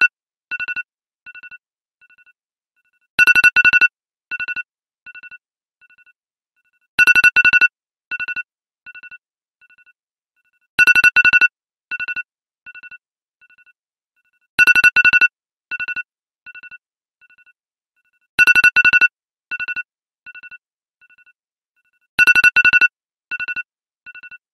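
iPhone ringtone ringing over and over: a short, bright electronic trill on two tones, repeating about every four seconds, each ring followed by three echo-like repeats that fade away.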